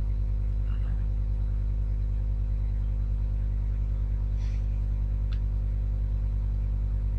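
Steady low electrical hum with a stack of buzzing overtones, constant throughout, with a faint click about five seconds in.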